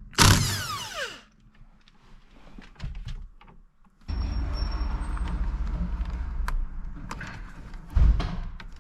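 Electric impact gun loosening the 16 mm steering-wheel bolt: a short burst at the start, then about four seconds of steady hammering from about four seconds in, ending with a thud.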